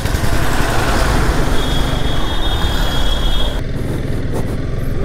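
Motorcycle on the move: engine rumble under loud rushing wind and road noise on the bike-mounted camera's microphone. A steady high-pitched tone sounds for about two seconds in the middle.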